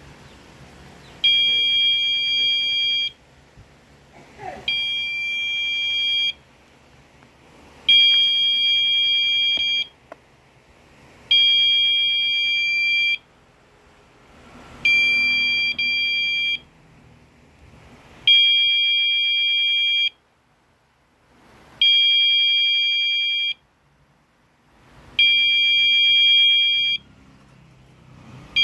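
Piezo buzzer of a pigeon clock's anti-theft alarm sounding in a repeating on-off pattern: a high-pitched beep lasting about two seconds, repeating about every three and a half seconds, eight times.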